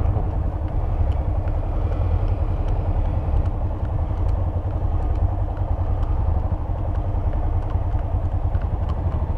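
Motorcycle underway, its engine running steadily under a constant low rumble of wind.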